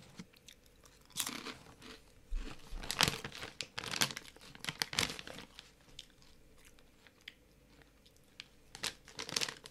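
A person chewing crunchy snack chips, with irregular crisp crunches through the first half, a lull, then a few more crunches near the end.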